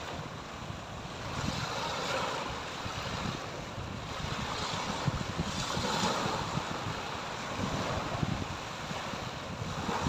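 Small sea waves breaking and washing up a sandy beach, the surf swelling and easing every few seconds.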